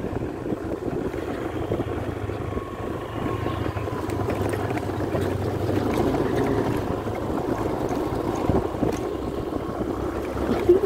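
Small motorcycle engine running steadily at low road speed, with wind rushing over the microphone as it rides.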